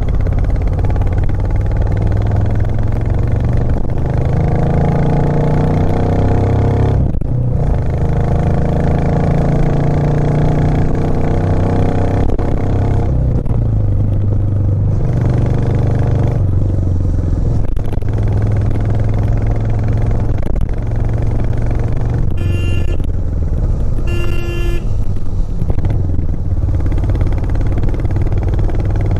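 Royal Enfield Classic 350 single-cylinder engine under hard load climbing uphill. Its note climbs and then drops back at each gear change. Later a horn sounds in two short blasts about two seconds apart.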